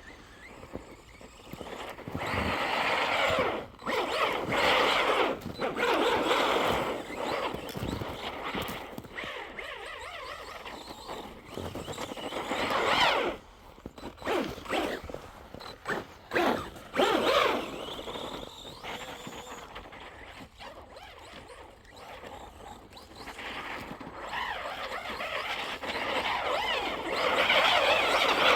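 Electric RC monster trucks driving through snow: motor whine and tyres churning snow, surging and dropping again and again as they accelerate and ease off.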